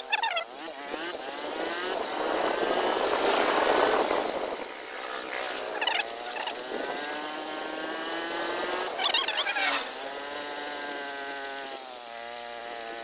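Motorcycle engine pulling under way, its pitch climbing and breaking off several times as the rider works through the gears, with a rush of wind noise about three to four seconds in.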